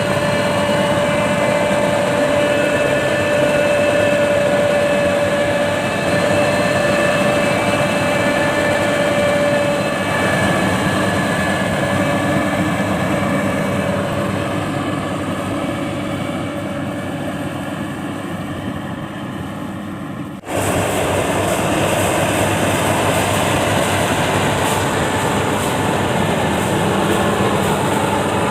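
Paddy-field tractor engine running hard, with a steady whine over it, slowly fading. About two-thirds through, an abrupt cut switches to a louder engine of another farm machine running steadily.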